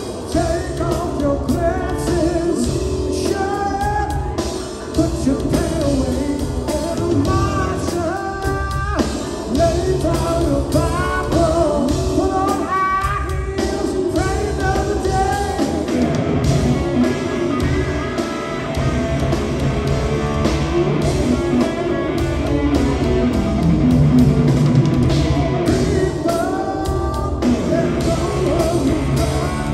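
Live rock power trio playing a song: a male lead vocal sung over electric guitar, bass and drum kit.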